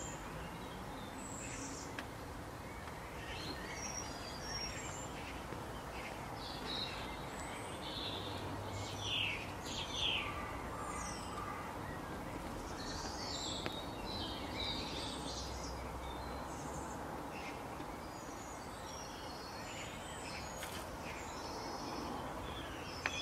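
Woodland ambience: wild birds chirping and calling here and there, short high notes scattered throughout, over a steady background hiss.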